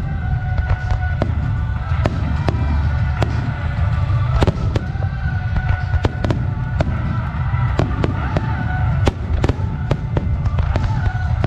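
Aerial firework shells bursting in rapid succession: a string of sharp bangs, roughly two a second, over a continuous low rumble of booms.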